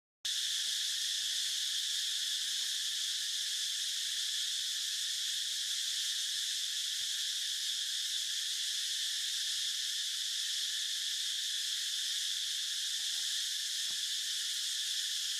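Steady insect chorus, a continuous high-pitched buzz that holds the same level throughout.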